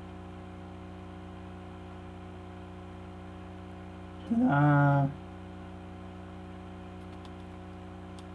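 Steady electrical mains hum, with one short two-note vocal sound from a man, falling in pitch, about four seconds in.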